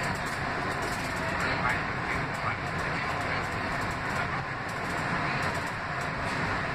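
Inside an R160B subway car as the train pulls away from a station and gathers speed: steady rumble of the wheels on the rails and the traction motors.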